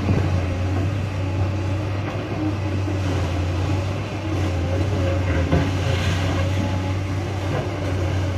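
Tracked hydraulic excavator's diesel engine running steadily with a deep hum as its arm pulls down a brick building, with a few knocks of falling masonry, the sharpest about five and a half seconds in.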